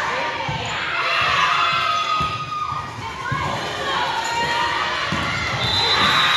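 Volleyball rally in a gym: thumps of the ball being played and players' feet, with girls' voices calling and shouting, rising to a burst of shouting and cheering near the end.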